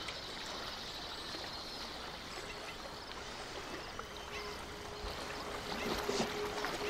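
Gentle lapping and trickling of river water.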